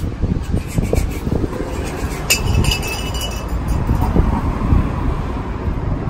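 Steady street-traffic rumble with wind buffeting the microphone. About two seconds in comes a single sharp metallic clink with a short ringing tail, from a copper pipe dropped onto the concrete sidewalk.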